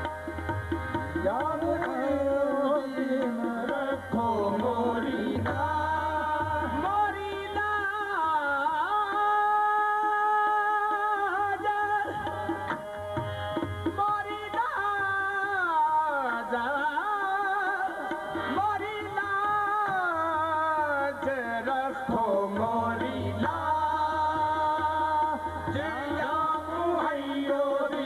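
Qawwali: singing in long held, gliding melismatic lines over sustained harmonium chords, with hand-drum strokes coming and going underneath.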